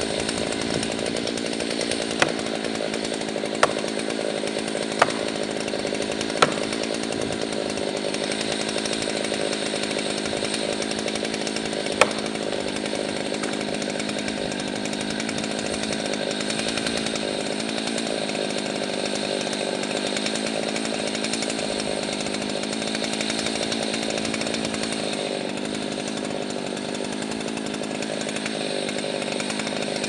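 Husqvarna chainsaw idling steadily, with no revving. Four sharp knocks, about a second and a half apart, fall in the first few seconds, and one more comes a few seconds later.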